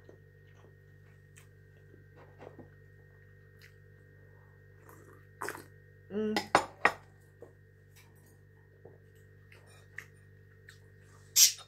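A ceramic mug and plate clink and knock on a table now and then, with quiet stretches of faint hum between them. There is a brief murmured voice sound about six seconds in, and a louder knock near the end.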